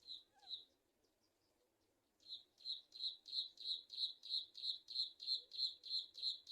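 A bird calling: two short high notes, then after a pause a fast run of the same high note repeated about three times a second.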